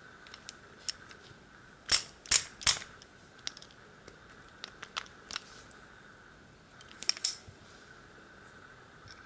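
Small metal clicks and taps of a hex key and tools working on a VIRO Panzer padlock as it is taken apart, with three sharper clicks about two seconds in and a quick cluster about seven seconds in.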